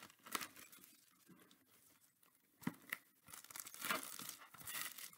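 Packaging of a freshly opened Donruss Holiday blaster box of trading cards rustling and tearing faintly as it is handled by hand, in short bursts at first, then a longer stretch of rustling from about three seconds in.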